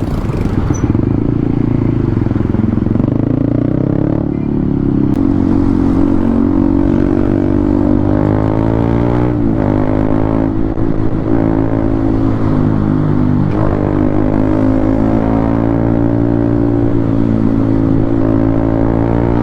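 Honda CB150R motorcycle engine running under way, a steady engine note that drops and climbs again twice, about halfway through and a few seconds later, as the throttle or gear changes.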